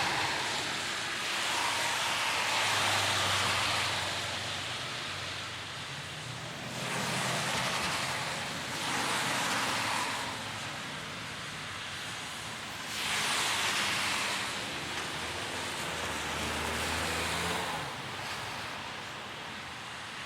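Cars passing one after another on a rain-wet street, each pass a swell of tyre hiss on the wet road that rises and fades, about four passes a few seconds apart, with a steady wash of noise between them. On some passes a low engine hum is heard under the hiss.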